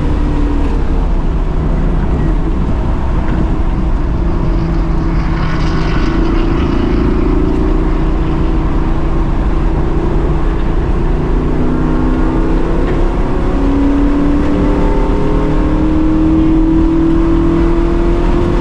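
A track-prepped fourth-generation Pontiac Firebird's engine pulling hard on a race circuit, heard from the cockpit over steady road and wind noise. The engine note rises and falls with the throttle, drops briefly around the middle, then climbs steadily through the last several seconds.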